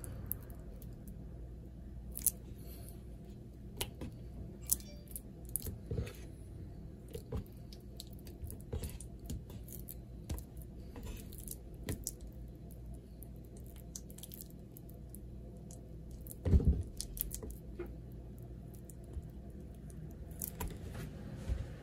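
Scattered clicks, taps and light knocks of kitchen utensils and dishes being handled, over a low steady hum, with one louder knock about three quarters of the way through.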